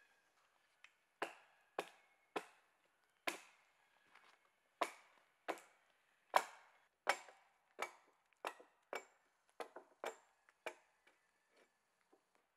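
Axe chopping the branches off a thin dead pole: about fifteen sharp strokes, one every half second or so, each ringing briefly. They stop about two seconds before the end.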